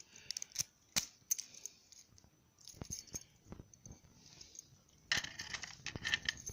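Small metal lock parts clicking and clinking as a lock cylinder and its key are handled, with scattered sharp clicks and a denser rattle near the end.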